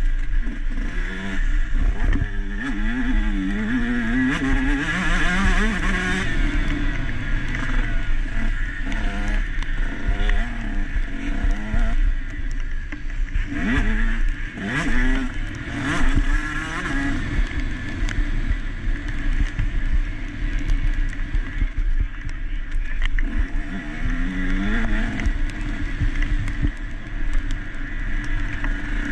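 KTM SX 150 two-stroke single-cylinder motocross engine at race pace, heard from on board. It revs up and down again and again through the gears as the bike accelerates and backs off over the track.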